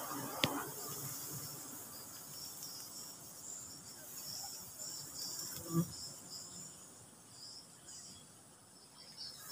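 Insects buzzing and chirping in a steady, warbling chorus, with a sharp click about half a second in and a short knock near six seconds.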